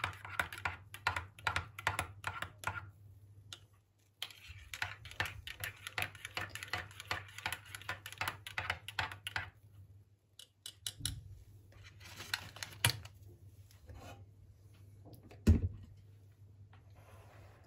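Spoon stirring a latte in ceramic mugs, clinking rapidly against the mug walls in two long runs. Then come a few scattered taps and a single louder knock near the end.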